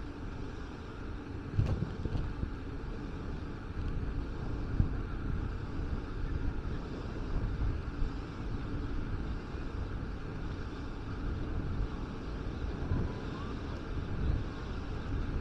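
Wind buffeting the microphone over a steady low outdoor rush, with a few brief knocks.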